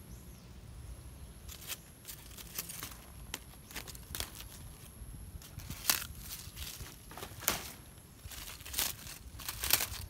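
Dry leaves and vines crackling and rustling as they are handled and brushed past, in irregular sharp crinkles that are loudest about six seconds in and again near the end.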